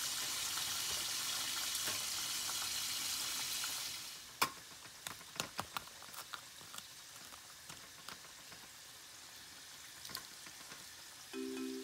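Steady frying sizzle for about four seconds, then it drops away, leaving a scatter of sharp crackles and taps as tongs and a knife press on the crisp crust of fried chicken. Music comes in just before the end.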